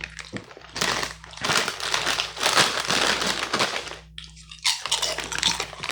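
Food packaging crinkling in long rustling bursts, with a short lull about four seconds in.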